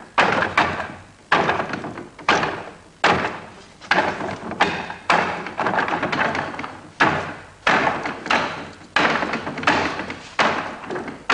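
Hands and forearms striking the wooden arms and trunk of a Wing Chun wooden dummy (mook yan jong): a run of sharp wooden knocks, roughly two a second at an uneven pace, each dying away with a short echo.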